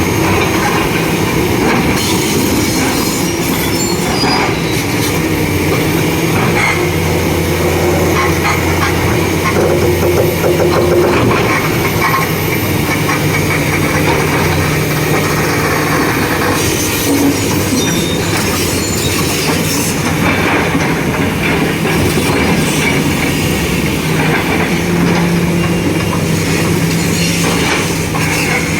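Two Komatsu hydraulic excavators' diesel engines working under load, their drone shifting in pitch now and then, with frequent metallic knocks and scraping from the machines straining against a large granite block.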